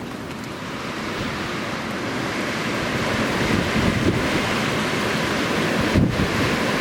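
Snowstorm wind blowing and buffeting the microphone, growing slowly louder, with a stronger gust about six seconds in.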